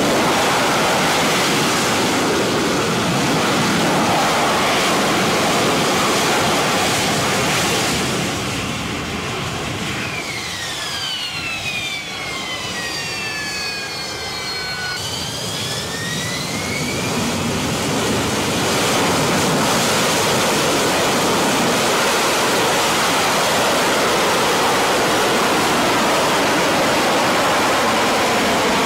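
AV-8B Harrier's Rolls-Royce Pegasus turbofan running with a loud, rushing jet roar. About ten seconds in, the roar eases and a high turbine whine slides down in pitch, then climbs back up as the roar builds again.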